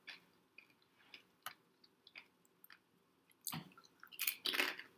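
A person chewing kettle-cooked barbecue potato chips: faint scattered crunches and mouth sounds, then louder crunching over the last second and a half.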